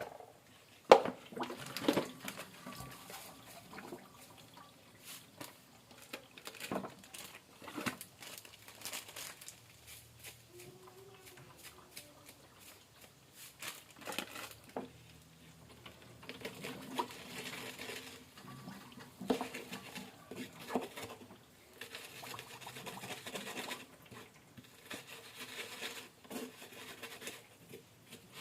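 Home kitchen food-preparation sounds: scattered light knocks and taps of utensils and dishes, with a louder knock about a second in and stretches of soft rustling.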